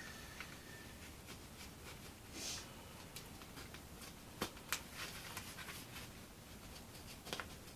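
Faint scratching and a few sharp light clicks of hand work on balsa wood, cutting a slot for a control-surface hinge.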